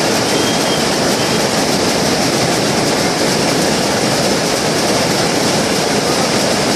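Shuttleless weaving looms running, weaving terry towel cloth: a loud, steady, rapid mechanical clatter.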